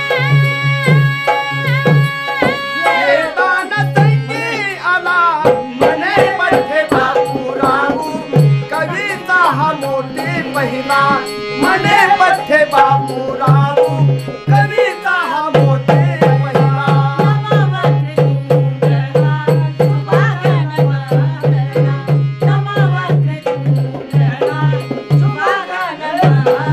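Marathi tamasha gan, a devotional invocation sung by male and female voices with harmonium and a drum. A held harmonium chord opens, then the singing comes in over an even drum beat.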